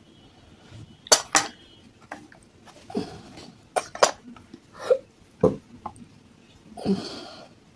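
Unglazed terracotta cups knocking and clinking against a stainless steel bowl and plate as a cup is dipped into thick white paste. There are two sharp pairs of clinks, about a second in and about four seconds in, with softer knocks and dull wet sounds in between.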